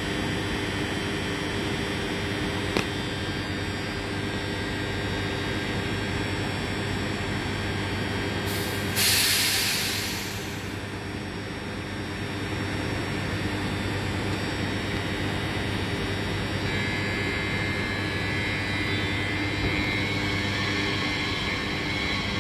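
Z 50000 Francilien electric multiple unit standing at the platform, its equipment giving a steady hum with several steady tones. A loud hiss of released compressed air lasts about two seconds near the middle. There is a single click a few seconds in, and a higher whine joins in the last third.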